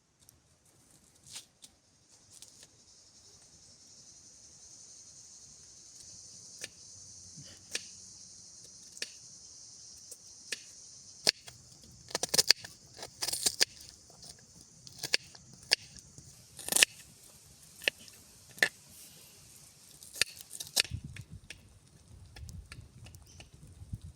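Cooking over a wood campfire: a steady high sizzling hiss with many sharp pops and crackles scattered through it, and a low rumble joining near the end.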